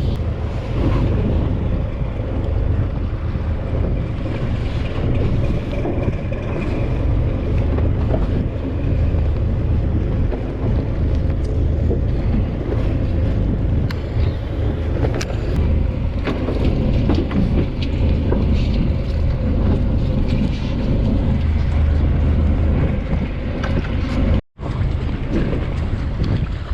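Fishing boat's engine running steadily under heavy wind noise on the microphone, with scattered small knocks. The sound drops out for an instant near the end.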